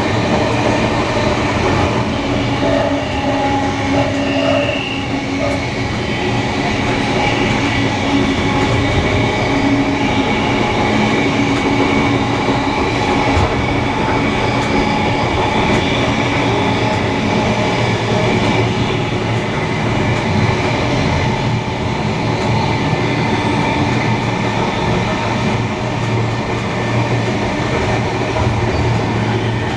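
Steam-hauled heritage passenger train running along the line: a steady, loud rumble of wheels on rail.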